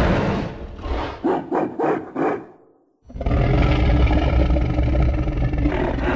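Designed monster-gorilla vocal sound effects, mixed from film creature sounds such as King Kong and the Hulk. A loud roar fades out, four short grunts follow, and after a brief silence a long roar starts about three seconds in.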